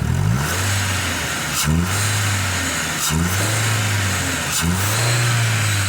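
Dongfeng Glory car engine revved four times in a row with the throttle, each rev rising quickly, held for about a second, then dropping back. The car has a misfire and an unsteady idle, with compression leaking in several cylinders.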